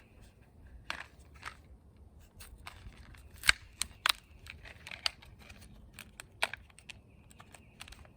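Crinkling rustles and sharp plastic clicks of packaging being handled and opened to get out a 194 LED bulb, with two loud snaps about three and a half and four seconds in.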